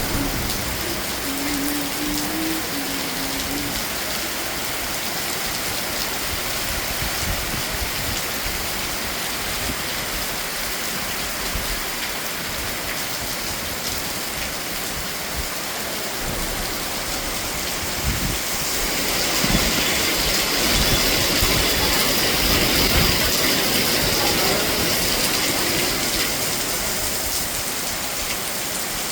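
Steady rain falling, a continuous hiss of drops, growing heavier about two-thirds of the way through and easing again near the end.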